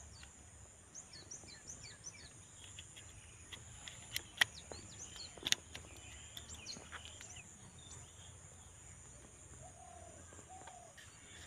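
Small birds chirping in quick runs of short, downward-sweeping calls over a faint, steady outdoor background. Two sharp clicks about halfway through are the loudest sounds, from a phone being pressed into a plastic mount on a drone frame.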